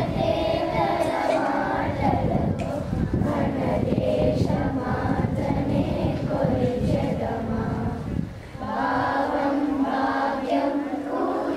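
A group of schoolchildren singing a prayer song together in unison, with a brief pause between phrases about eight seconds in.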